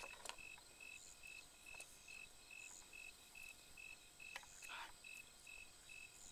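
Near silence of a night field: a cricket chirping faintly in an even pulse, about two to three chirps a second, over a thin steady high insect tone. A soft brief rustle comes about four and a half seconds in.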